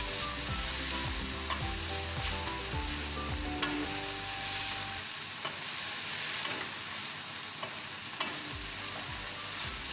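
Kale and bell peppers sizzling in hot oil in a metal wok, stirred and tossed with a wooden spatula that scrapes and knocks against the pan now and then.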